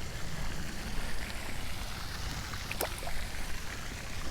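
Steady noise of running water, with a single brief sharp tap about three seconds in.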